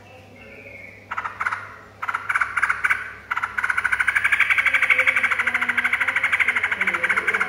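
Yellow-vented bulbul giving a fast, rattling chatter. It starts as a few short bursts, then runs continuously from about three seconds in.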